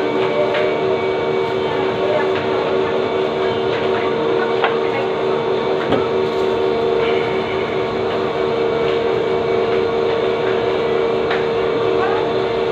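Steady machine hum with a strong fixed tone, with a few short clicks and knocks scattered through it.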